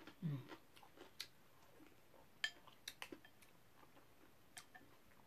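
Soft scattered clicks and clinks of chopsticks and a spoon against a glass bowl while eating, about half a dozen light taps. A brief low murmur just after the start.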